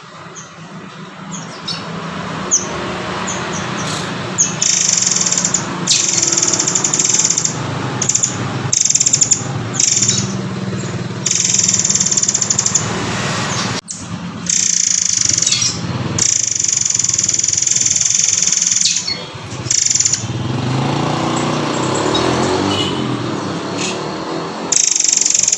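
Recorded song of the bird known locally as murai air or murai kopi, played as a training call for captive shamas: a series of high, buzzy, rapid trills, each lasting one to a few seconds, with short breaks between them.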